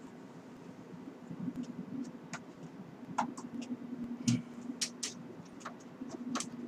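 Scattered clicks and scrapes of a graphics card being worked into the Power Mac G5's expansion slot and guide, over a steady low hum.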